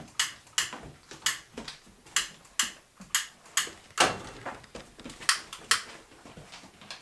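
A run of sharp clicks and knocks, about two a second, with one heavier knock about four seconds in.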